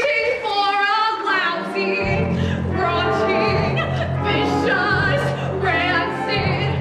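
A young woman singing solo in a big musical-theatre style, with wide vibrato on long held notes. A steady low accompaniment from the band comes in under her about two seconds in.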